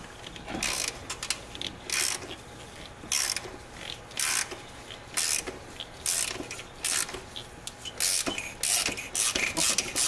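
Ratchet clicking in short runs, about one run a second, as it works an oil filter cap wrench to unscrew the oil filter housing cap on a Toyota 3.5-litre V6.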